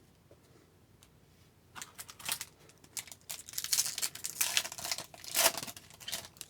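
A trading card pack's wrapper being torn open and crinkled, in irregular crackles starting about two seconds in.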